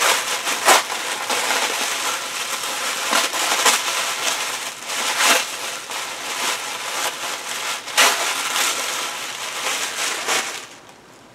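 Tissue paper crinkling and rustling as a wrapped present is pulled open by hand, with several sharp crackles along the way; it stops shortly before the end.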